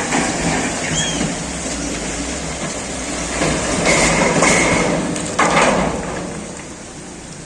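Motor grader running, with a loud, rough grinding and rattling that swells in the middle. Two short high tones sound about four seconds in, and the noise falls away near the end.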